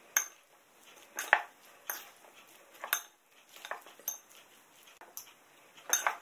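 A fork and a serving utensil tossing salad in a ceramic bowl, clinking against the bowl at irregular intervals, about one or two clinks a second.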